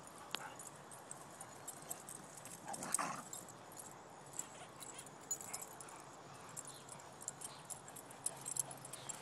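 Dogs running and playing on grass, with light scattered paw ticks and one louder short noise about three seconds in.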